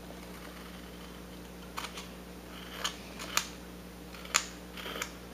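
Carving blade cutting into wood as a piece is whittled down: about six short, sharp cuts and snaps in the second half, over a steady low hum.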